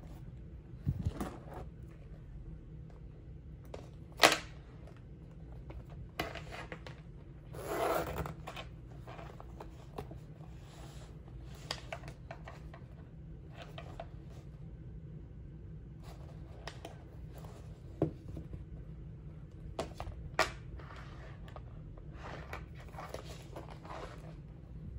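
Handbags and a canvas zip pouch being handled on a tabletop: scattered light knocks and clicks, the loudest a sharp knock about four seconds in, with a brief rustle about eight seconds in. A low steady hum lies underneath.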